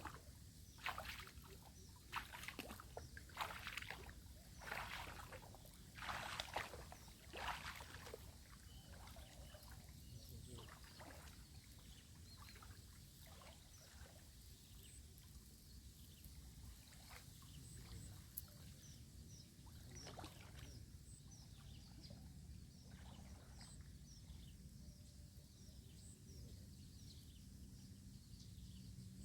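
Water sloshing in a string of irregular splashes over the first eight seconds or so, then faint high bird chirps over a low background hum.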